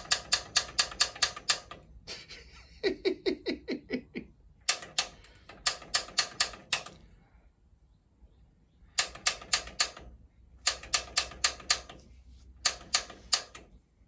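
Piezo pilot igniter on a gas water heater's gas control valve clicking in repeated rapid runs, about five clicks a second, with short pauses between runs, while the pilot is being lit.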